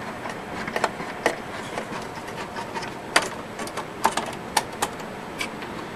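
Irregular light clicks and taps over a steady hiss, the sharpest few coming about halfway through.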